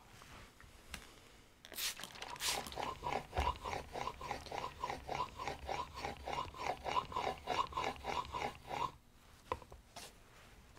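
Smoothing plane blade in a honing guide stroked back and forth on a wet 12000-grit waterstone, the final polishing stage of the bevel: a rhythmic rasping swish at about four strokes a second, starting about two seconds in and stopping near the end, followed by a couple of light clicks.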